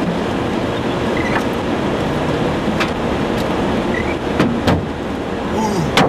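Steady rushing wind noise on the microphone, broken by several sharp knocks, the loudest just before the end.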